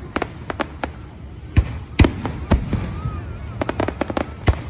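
Aerial fireworks going off: irregular sharp bangs and pops, with a quick run of crackling about three and a half seconds in.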